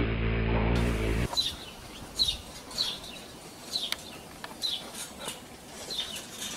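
A honeybee's buzz slowed to quarter speed, a deep engine-like drone, cuts off about a second in. A bird then calls over and over, short falling high notes every half second to a second.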